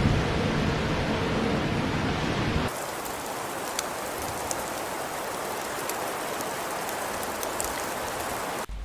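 Wind rumbling on the microphone for the first few seconds, then, after a sudden change, a steady rain-like hiss with faint scattered ticks.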